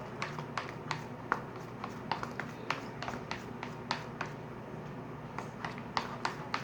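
Thick, unactivated glue slime mixture being stirred in a bowl, giving a run of small irregular sticky clicks, about three or four a second.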